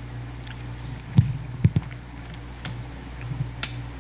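Bible pages being turned and the book handled near a desk microphone: faint paper rustles, with three soft thumps between one and two seconds in, over a steady low hum.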